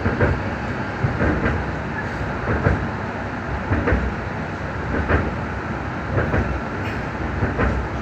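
Stuttgart Stadtbahn light-rail train running along the track, heard from inside the passenger compartment: a steady rolling rumble with short knocks from the wheels at uneven intervals, roughly one or two a second.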